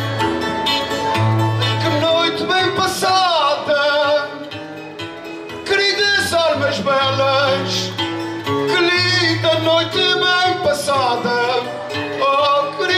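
Portuguese guitar and classical guitar playing a desgarrada accompaniment, the classical guitar giving a plucked bass line under the Portuguese guitar's melody. A man's singing voice comes in over the guitars a few seconds in.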